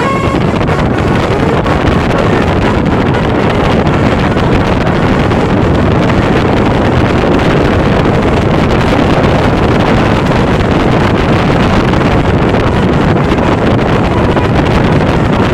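Steady loud roar of vehicle noise mixed with wind buffeting the microphone, with no horn tones.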